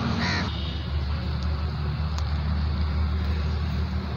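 Steady low mechanical drone under a constant noisy hiss, with one brief high chirp about a quarter of a second in.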